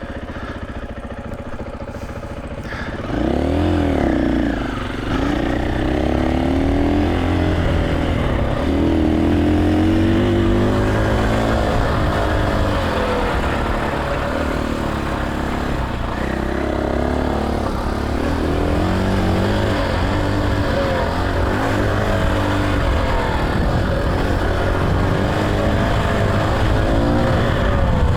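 KTM 500 EXC-F dirt bike's single-cylinder four-stroke engine, running low for the first few seconds, then pulling away about three seconds in and revving up and down repeatedly as the bike is ridden along the trail.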